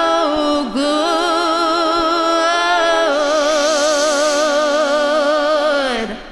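Mixed-voice a cappella group holding the song's final chord, the voices swelling into vibrato about halfway through and releasing together just before the end.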